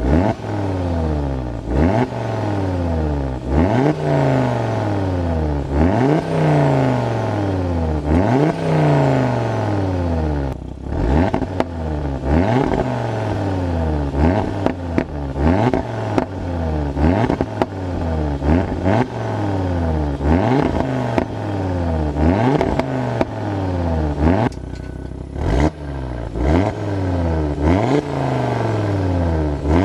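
Audi RS3 8V's turbocharged 2.5-litre five-cylinder engine heard from the rear through its exhaust with Milltek bypass pipes fitted. The engine note climbs and drops again and again as it revs, with sharp breaks between the sweeps.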